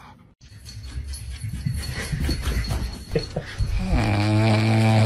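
A dog snuffling at close range, then, near the end, a puppy snoring loudly with a steady, low drone.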